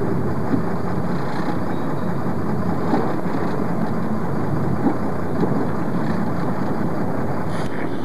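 Steady rumble of a sport-fishing boat's engine running, mixed with wind and water noise.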